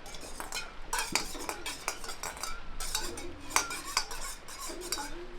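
Metal utensils and dishes clinking and clattering in irregular knocks, several of them ringing briefly.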